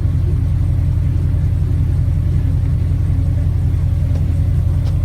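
Airboat engine and propeller running at a steady, even speed, a loud low rumble that does not change.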